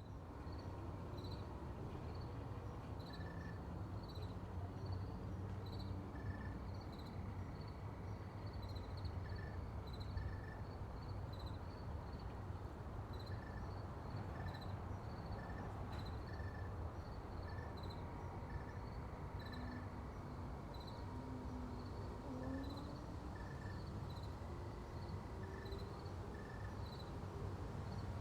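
Backyard ambience near a road: a steady low rumble of distant road traffic under regular high chirps, about two a second, with a lower chirp repeating every second or so.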